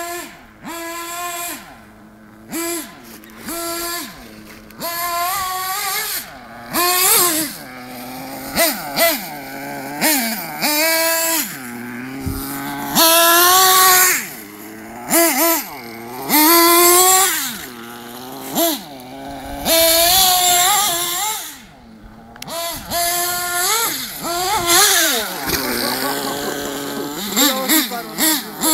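A 1/8-scale nitro RC truggy's small two-stroke glow engine revving up and down over and over as it is driven, its pitch rising and falling with the throttle. It is loudest in two longer full-throttle runs about halfway through.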